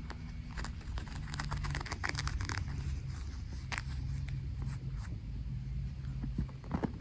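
Close rustling and soft clicks of a kitten moving and nuzzling against a cat's fur and the blanket beneath, over a low rumble that comes and goes in short stretches.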